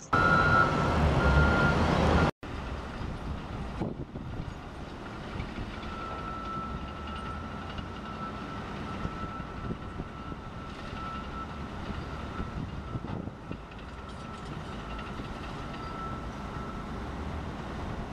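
Heavy diesel wheel loader at work: for the first two seconds its engine runs hard while a bucketload of dirt pours into a dump truck, with a back-up alarm beeping. After a sudden break, a loader's engine runs steadily, with a thin high alarm tone held over it for most of the rest.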